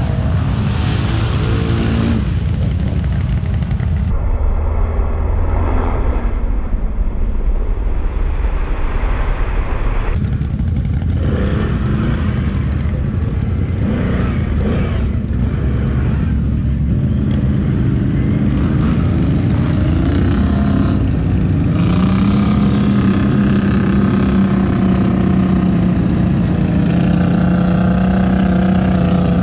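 ATV engines running, with a strong steady engine note that comes in about 22 seconds in and holds.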